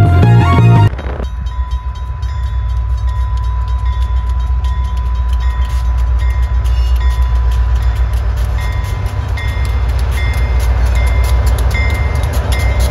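Music cuts off about a second in, giving way to the low, steady rumble of Canadian Pacific diesel locomotives growing louder as they approach and pass. Over it a railway crossing bell dings about twice a second.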